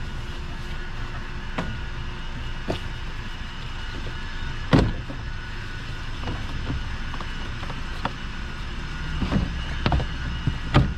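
Plastic knocks and clicks as a car's air-intake duct and air filter box are worked loose and lifted out by hand, with one loud knock about five seconds in and a quick run of knocks near the end, over a steady background hum.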